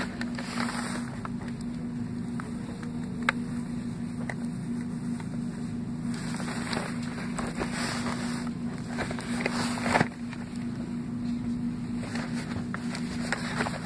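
Cardboard cracker box being turned and handled: rubbing and scraping against the hand, with a few sharp knocks, the loudest about ten seconds in. A steady low hum runs underneath.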